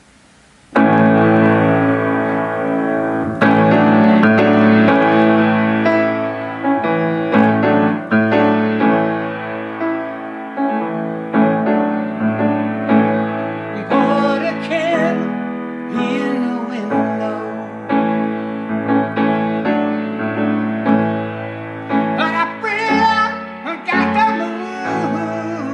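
Keyboard music that starts abruptly about a second in after a faint hiss, with held piano-like chords under a melody line.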